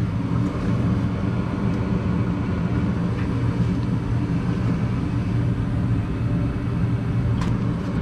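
Goodman gas furnace running in heat mode, its burners firing and its motors giving a steady low hum. A single sharp click near the end as the furnace begins its shutdown.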